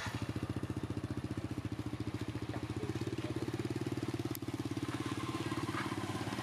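A small engine running at idle, with a fast, even pulsing beat.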